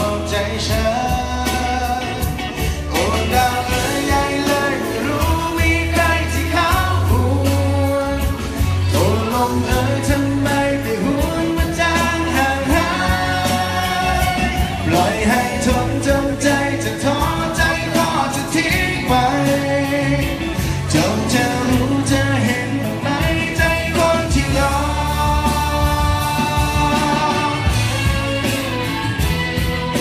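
Live band music amplified through a stage PA: a male singer sings a song over drums, bass and guitar with a steady beat.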